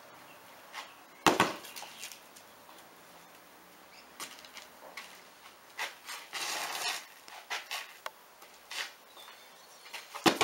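A soccer ball being kicked and blocked, with two sharp thuds: the loudest about a second in and another near the end. Softer taps and scuffs come in between.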